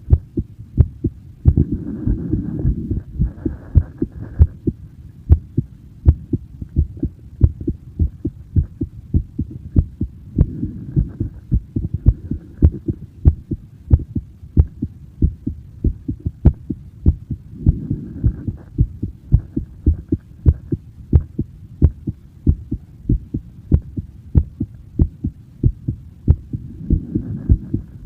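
A human heartbeat heard close up: a steady, even rhythm of low thumps. A low rushing noise swells up behind it a few times.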